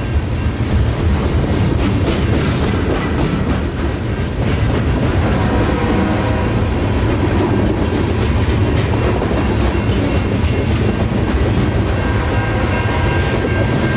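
A train passing close by, its wheels running steadily on the rails with a continuous low rumble. Faint steady high tones come in during the second half.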